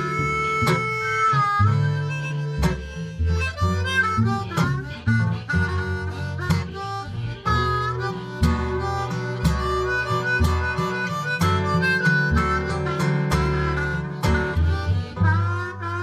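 Blues harmonica solo, the harp cupped against a handheld microphone, playing a melody of bent and sliding notes over guitar accompaniment.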